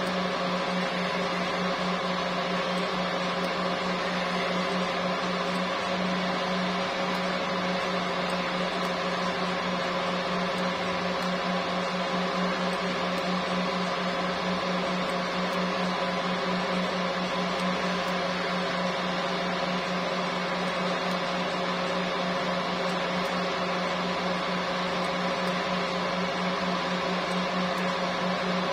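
A steady machine hum: a low drone with fainter higher tones over an even hiss, unchanging throughout.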